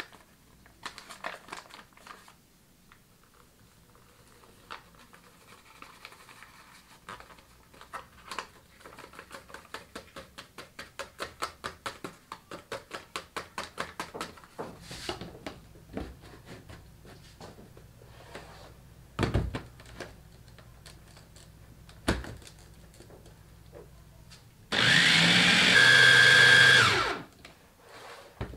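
Whipped cream powder is tipped from a sachet into a plastic blender jug, with a run of light, regular tapping sounds. Two short knocks follow as the jug is handled. Near the end the electric blender runs loudly and steadily for about two seconds, whipping cold milk and whipped cream powder into a froth.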